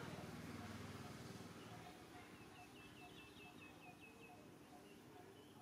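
Faint bird chirping outdoors: a quick run of short, high chirps lasting about two seconds. Before it, a low engine hum fades away.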